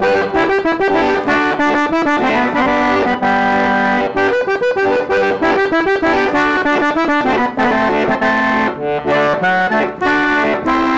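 Button accordion played in the traditional conjunto style: quick runs of notes over held chords, at a steady pace.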